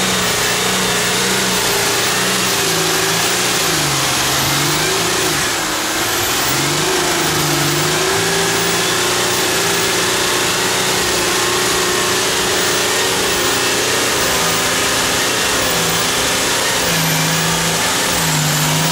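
Volkswagen Touareg's engine revving in deep mud ruts, the revs rising and falling again and again rather than holding steady. This fits the stability control braking the spinning wheels: its brake pads are smoking.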